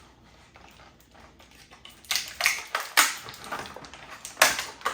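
Plastic packaging of a blind-box toy pack crinkling and crackling in irregular sharp bursts as it is torn open, starting about two seconds in.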